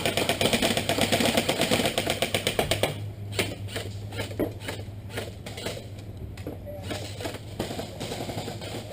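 Airsoft electric gun firing on full auto, a rapid even stream of shots that stops about three seconds in. After that come only scattered single clicks and knocks.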